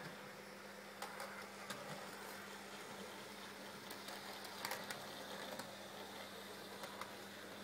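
OO gauge model diesel locomotive running along the track, its small electric motor a faint steady hum, with a few light clicks.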